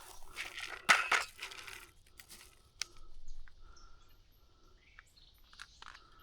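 Close handling noise: a burst of rustling and crunching for about two seconds, loudest about a second in, then a few sharp clicks and softer rustles.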